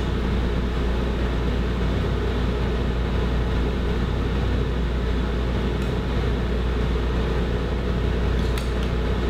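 A steady low hum with an even rushing noise, and a few faint clicks of a spoon stirring salsa in a glass bowl.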